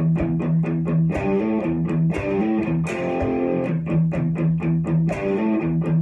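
Electric guitar strummed in a steady rhythm, about four to five strums a second, changing chords every second or so.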